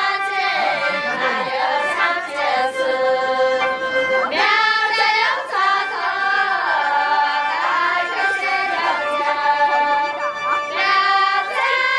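A group of women singing together in high voices, in phrases that start over about every six seconds: a Miao toasting song sung during the rice-wine pouring.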